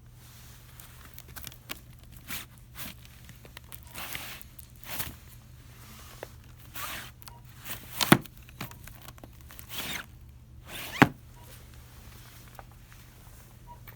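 Crinkling and rustling of plastic packaging as items are handled, in a string of short bursts, with two sharp clicks about three seconds apart.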